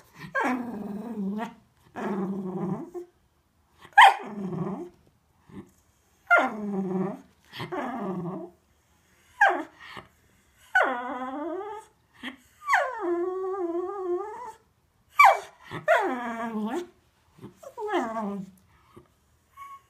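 Cocker spaniel giving a long run of drawn-out, wavering moans and grumbles, broken by a few short sharp barks. It is the dog's demand to be taken out for a walk.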